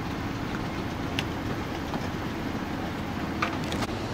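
Steady vehicle engine running, with a few sharp light clicks about a second in and twice near the end.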